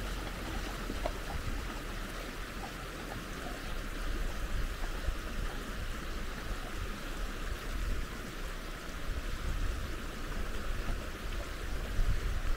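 Steady rush of flowing water over a constant low rumble.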